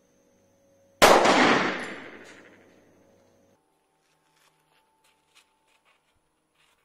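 A single 9 mm Luger pistol shot from a Taurus TS9, firing a 124-grain full metal jacket round-nose round, about a second in, its echo dying away over about two seconds. A few faint ticks follow.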